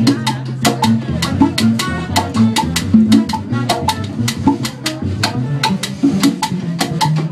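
Live band playing an upbeat salsa-style groove: an upright bass line under quick, steady drum and hand-percussion hits.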